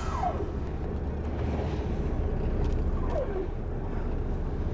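Whale-watch boat's engine running with a steady low rumble under wind and sea noise. Two short, faint falling whistle-like calls come near the start and about three seconds in.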